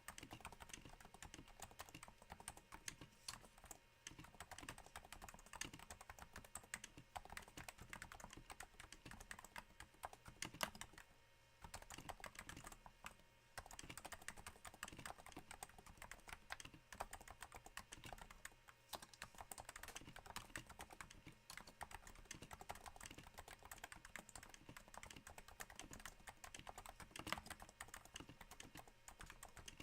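Steady typing on a Cooler Master NovaTouch keyboard, its Topre switches damped with Hypersphere silencing rings: a dense run of soft keystrokes that breaks off briefly about eleven seconds in.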